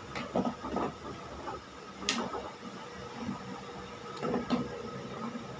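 Plastic pop tube toy being bent and handled, faint crinkly rubbing with a few sharp clicks, the clearest about two seconds in.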